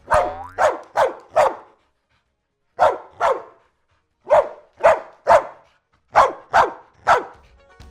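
A dog barking in four quick bouts of two to four barks each, about a dozen barks in all.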